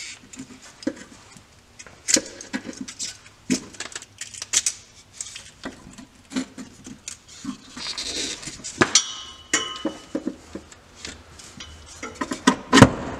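Metal clinks, rattles and scrapes as the rusty steel pieces of an old driveshaft centre-support carrier are worked loose and pulled off an Audi driveshaft by hand. A brief metallic ring sounds about nine seconds in, and a sharp knock near the end is the loudest.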